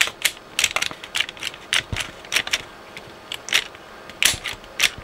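Cassette-deck transport mechanism of a Dynatron HFC205 stereogram being worked by hand, its levers and buttons giving a string of irregular sharp clicks and clacks. The old grease has just been thinned with isopropyl alcohol to free the mechanism off, and it is starting to sound clunky and snappy, as it should.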